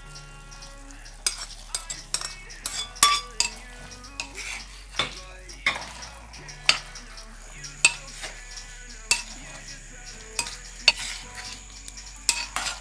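Chicken and spring onions being stirred in a pan of reducing soy sauce: sizzling, with the spatula knocking and scraping against the pan in irregular strokes, starting about a second in.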